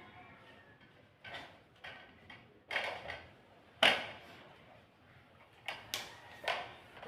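A run of short, sharp sneezes, about eight in all, the loudest one about four seconds in.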